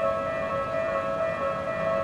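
Japanese railway level-crossing warning bell ringing, two alternating tones repeating steadily: the signal that a train is approaching the crossing.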